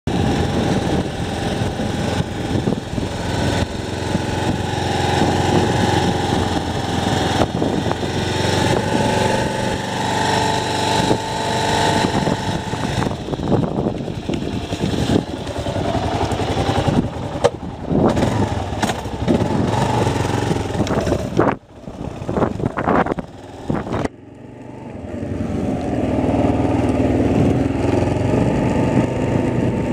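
An engine running steadily, dropping away sharply a few times about three-quarters of the way through before it picks up again.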